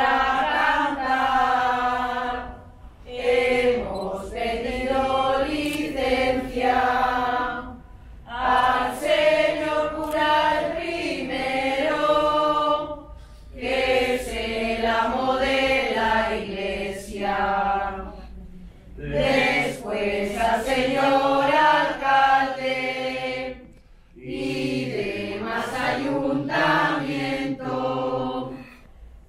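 A group of women singing a shepherds' Christmas song unaccompanied, in phrases of about five seconds with short breaks between them.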